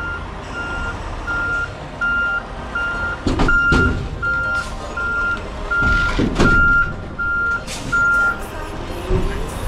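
Reversing alarm beeping about once every three-quarters of a second as a semi-truck backs up, over the truck's low engine rumble, with a few loud sudden noises in between. The beeping stops near the end.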